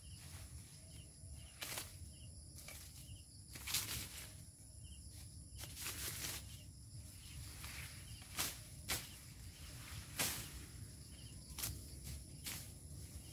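Dry sugarcane leaves and stalks cracking and rustling as someone works in the cane, with about a dozen irregular sharp snaps; the loudest come about four and ten seconds in. A steady low rumble and a faint high hiss run underneath.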